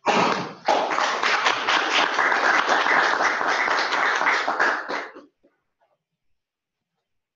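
Seminar audience applauding for about five seconds, then stopping.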